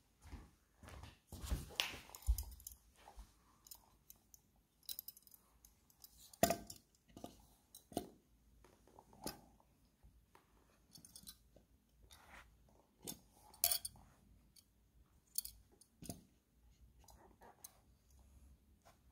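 Steel vernier caliper worked against a pine block's pellet holes and handled: irregular sharp clicks, short scrapes and light metallic clinks a few seconds apart, a cluster of them in the first couple of seconds.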